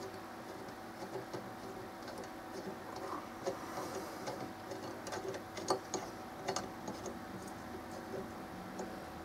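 Light, scattered clicks and taps of small metal parts being handled and fitted together by hand on a steel flat-bar bracket, over a faint steady hum.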